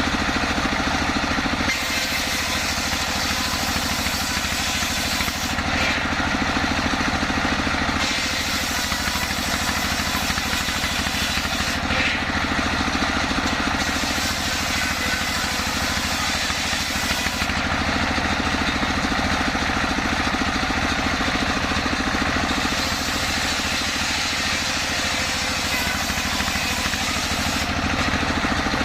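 Sawmill saw and its engine running steadily while cutting jackfruit wood, a constant drone with a high hiss that comes and goes every few seconds.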